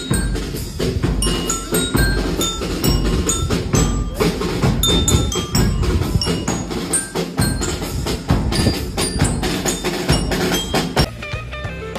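Background music with short chiming bell-like notes over a dense percussive beat.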